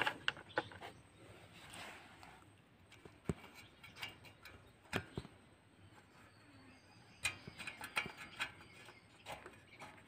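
Scattered metallic clicks and knocks from hand tools and parts as the exhaust pipe of a TVS Super XL moped is fitted at its flange, with a quick run of clicks near the end. The engine is not running.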